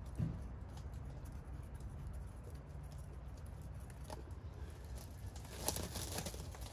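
Light handling noises from hands working a steel square-tube bracket on an ATV hitch: a sharp tap just after the start, another about four seconds in, and a few clicks and scrapes near the end, over a low steady hum.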